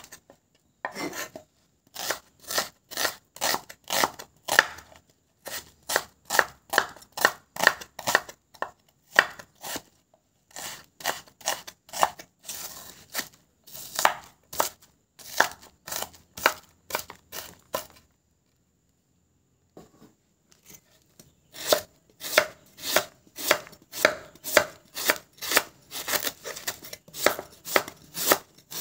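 Large kitchen knife slicing onion on a wooden chopping board: quick, even strokes at about two or three a second, each a sharp knock of the blade against the board. The chopping stops for about two seconds partway through, then resumes at the same pace.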